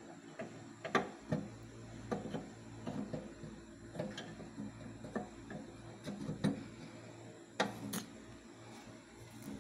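Irregular light clicks and knocks of objects being handled close to the microphone, with sharper knocks about a second in and twice near the end, over a steady low hum.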